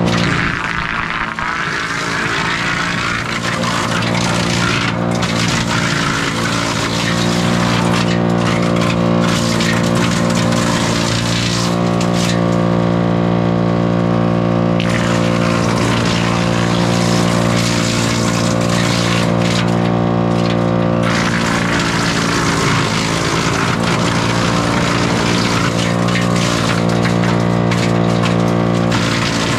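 Split-Fire wood chipper running steadily at constant speed, with about four spells of loud chipping noise as pieces of red pine sawmill scrap are fed in and chewed up.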